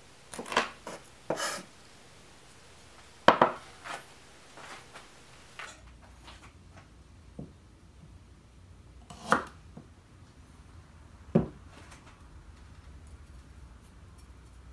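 Kitchen knife knocking on a wooden cutting board: quick irregular chops through red chili in the first few seconds, then a few single, sharper cuts through a knob of fresh ginger, about two seconds apart.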